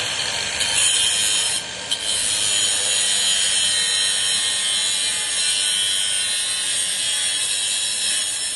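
A power tool cutting into a bike lock, running steadily with a grinding, whining sound of metal being cut, easing briefly about two seconds in before biting again. The lock has not yet been cut through.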